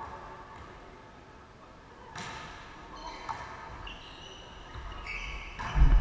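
Volleyball rally in a large sports hall: the ball is struck with a sharp smack about two seconds in and again more lightly a second later, then a heavy thud near the end, the loudest sound, as the rally ends.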